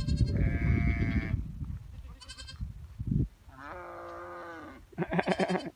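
Several goats bleating in turn, about four separate calls, one of them long and drawn out about four seconds in. A low rumble runs under the first two seconds.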